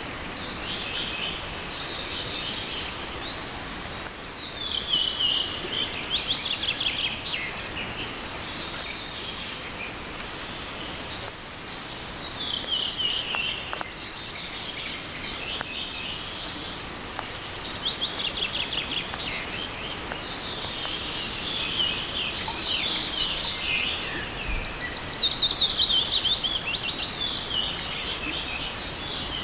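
A small songbird singing repeated short phrases, each a quick run of notes sliding downward and lasting about two to three seconds, a few seconds apart, over the steady rush of a small forest stream.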